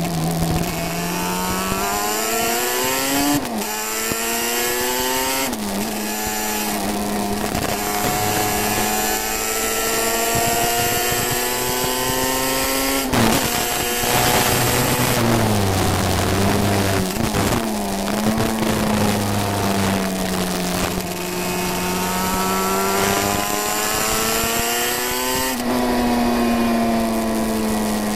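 350cc classic racing motorcycle engine pulling hard, heard from on board: its pitch climbs under acceleration and drops at each gear change, several times over. Wind rush and crackling from a damp microphone run under the engine.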